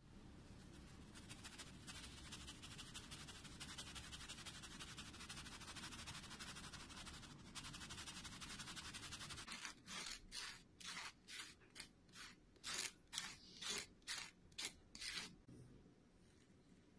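Fine white powder being sifted through a plastic mesh sieve, with a quiet, fast, steady rasping of powder through the mesh. About ten seconds in this turns into a run of about a dozen separate rasping strokes, roughly two a second, as the sieve is shaken in strokes.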